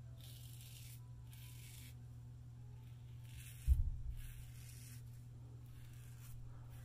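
Double-edge safety razor (Timeless, scalloped head) scraping through lathered stubble on the neck and chin: about four or five short raspy strokes, each around half a second long. A single low thump about halfway through is the loudest sound, over a steady low hum.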